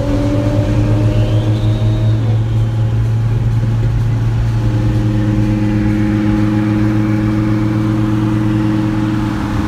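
Car engines and tyre-road noise heard from inside a car cruising at highway speed: a steady, loud engine drone that holds its pitch, with the engine note shifting slightly about halfway through.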